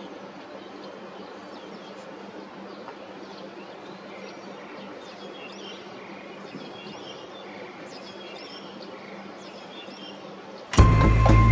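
Outdoor ambience: a steady low hum with faint bird chirps scattered through the middle. Loud music cuts in suddenly near the end.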